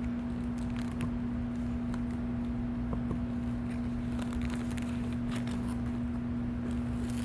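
A steady low hum fills the room, with faint scattered clicks and soft footsteps as someone walks up.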